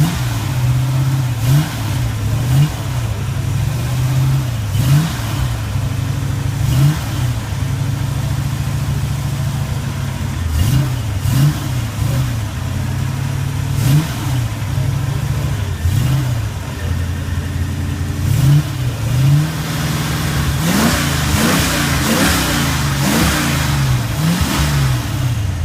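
Ford Maverick's V8 engine idling, blipped repeatedly with short throttle stabs: the revs jump up and fall back every second or two, and come in a quicker run near the end.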